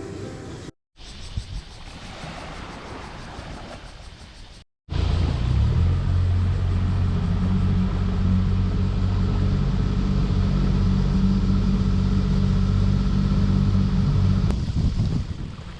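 A motor engine running steadily at an even low pitch, starting abruptly about five seconds in after a quieter stretch of background noise, and dropping away near the end.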